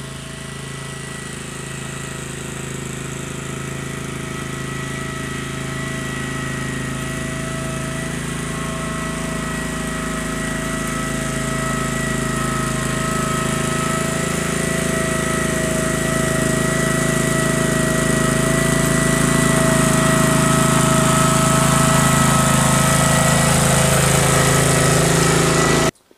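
Case 446 garden tractor's engine running steadily under a light load, with a steady high whine over it, growing louder as the tractor drives closer.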